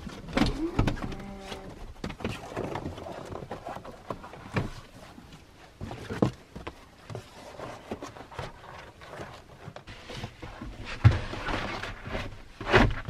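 Reflective window shades being handled and pressed into a minivan's window frames: rustling, scattered light knocks and a brief squeak about a second in, with two louder thumps near the end.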